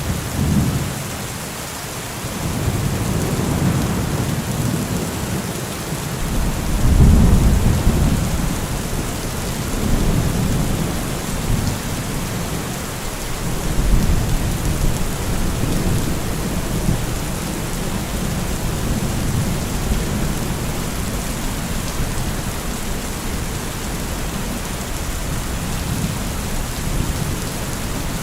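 Heavy rain falling steadily, with deep low rumbles swelling and fading underneath it several times, the strongest about seven seconds in.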